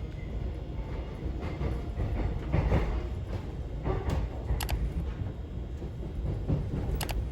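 A train running, a steady low rumble that swells and eases, with a few sharp clicks.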